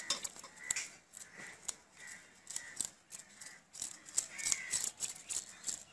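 A knife scraping scales off a hilsa fish in a steel bowl of water: a run of short, scratchy scrapes and clicks.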